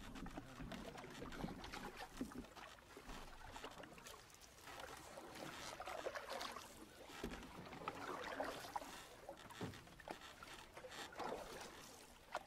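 Canoe paddle strokes in river water: soft swishes and splashes of the blade dipping and pulling, coming every couple of seconds.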